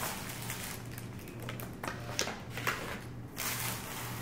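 Eating sounds: chewing of sushi with soft clicks and rustles from chopsticks and food handling, several short bursts over a low steady hum.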